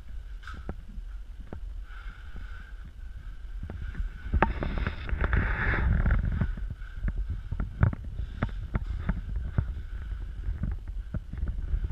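Footsteps and handheld-camera handling noise over a steady low rumble, with scattered clicks and knocks and a louder rustling stretch about four to six seconds in.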